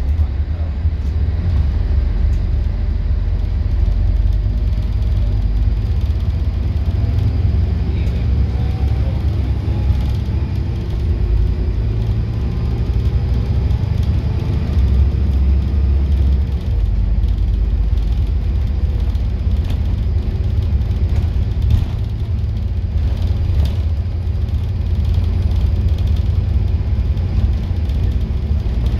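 Scania N230UD double-decker bus under way, heard from the upper deck: a steady low engine and road rumble. The engine note rises as the bus accelerates between about six and twelve seconds in, and light rattles from the bodywork come through later on.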